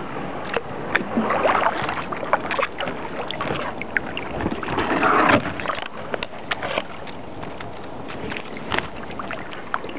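Kayak paddle strokes: water swishing and splashing as the blade dips and pulls, with scattered drips and light knocks, swelling twice.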